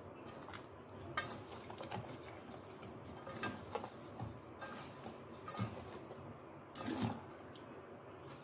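Light kitchen clatter of utensils being handled: faint scattered clicks and knocks, with a louder knock about a second in and another about seven seconds in.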